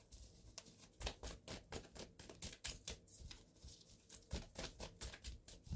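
Deck of cards being handled and shuffled by hand: a run of soft, irregular clicks and taps.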